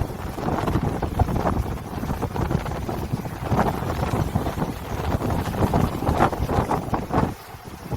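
Wind blowing over the sea in strong, uneven gusts that buffet the microphone with a deep rumble, easing briefly near the end.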